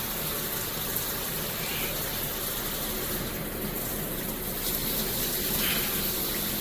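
Water spraying steadily from a Cobbe rain shower head, an even rush of running water.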